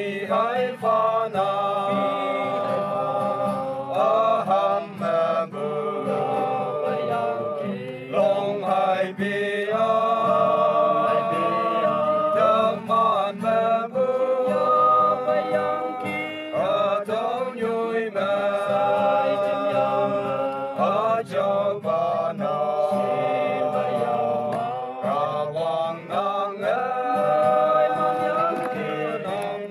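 A group of men singing a hymn together from song sheets, accompanied by strummed acoustic guitar.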